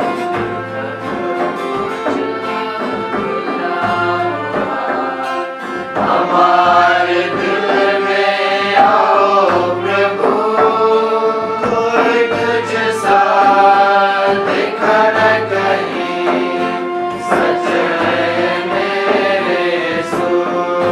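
A devotional hymn sung by voices with instrumental accompaniment, the melody gliding from note to note over a steady low pulse.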